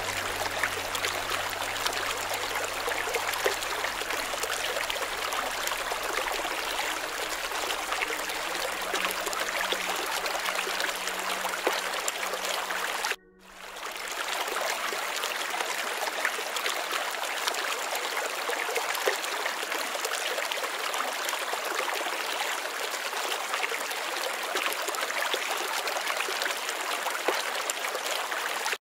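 Steady running water, like a stream trickling, with a sudden brief drop-out about halfway through before it picks up again.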